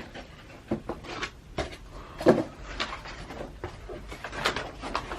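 Handling noise as sneakers are taken out of a lidless shoe box: a run of knocks and rustles, the loudest knock about two seconds in.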